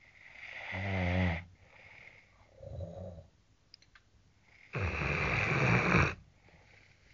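A person snoring, three breaths in turn: a pitched snore swelling in loudness about a second in, a shorter, softer one near three seconds, and a long, loud, rattling snore from about five to six seconds.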